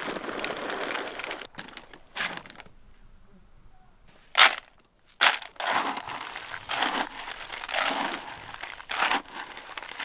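Plastic bag crinkling as seed bait is poured from it into a plastic bucket, then carp pellets and seeds rustling and scraping as they are stirred with a plastic scoop. A sharp, loud scrape comes about four and a half seconds in.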